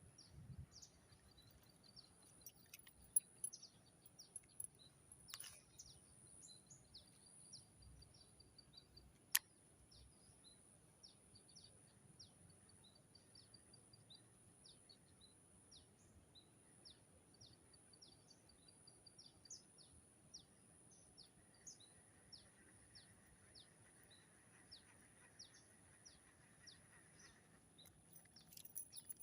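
Faint open-air ambience: a bird calling in quick runs of short, high chirps, over a thin, steady high whine. Two sharp clicks stand out, about three seconds and nine seconds in.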